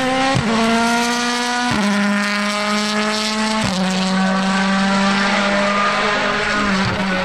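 Rally car's turbocharged engine running hard at high revs, with three sharp gear changes, about half a second, two seconds and three and a half seconds in, each dropping the engine note.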